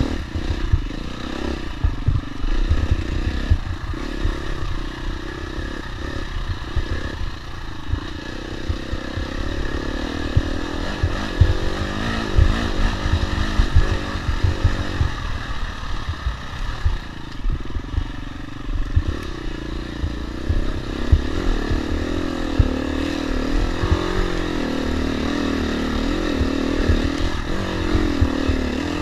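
Husqvarna dirt bike engine revving up and down as the bike is ridden hard along a rough trail, the pitch rising and falling with the throttle, with frequent low knocks and clatter from the bike bouncing over the ground.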